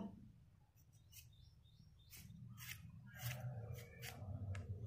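Hand vegetable peeler scraping the skin off a raw potato in short, faint strokes, about two or three a second, starting about two seconds in after a near-silent start.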